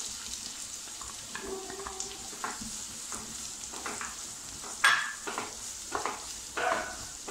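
Chopped onions sizzling in hot oil in a nonstick kadai as a wooden spatula stirs them: a steady sizzle with scattered scrapes and knocks of the spatula against the pan, the loudest about five seconds in.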